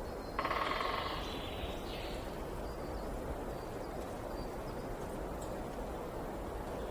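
Steady rush of a flowing river. A bird calls once about half a second in for just over a second, with a shorter call just after.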